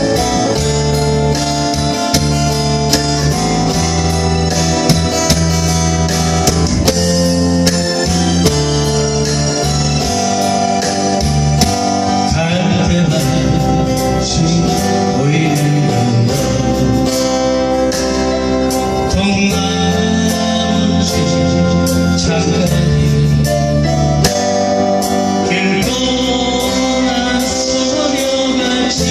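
Music: a band accompaniment led by guitar over a steady beat, with singing over it.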